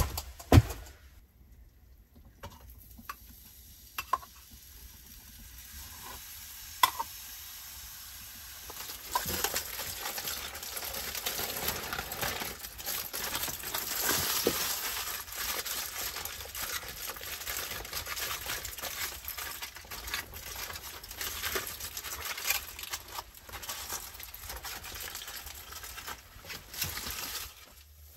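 A few knocks, then from about nine seconds in a steady sizzle with fine crackling: food frying in a pan on the iron hot plate of a wood-fired stove. It swells a few seconds later and stops shortly before the end.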